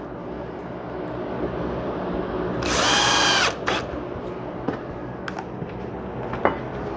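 Power drill/driver driving a screw: one short whining burst of under a second, about three seconds in, over a steady hum, then a few light clicks.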